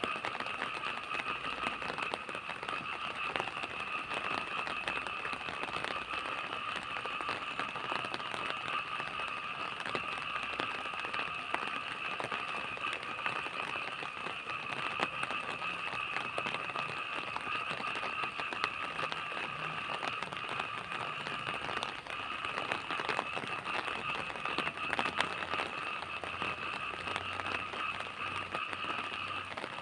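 Steady rain falling, a dense crackling patter of drops, over a steady high-pitched drone.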